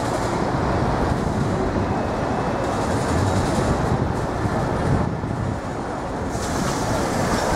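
A train running by: a steady rumble of wheels and rail noise that dips slightly past the middle, then gains more hiss toward the end.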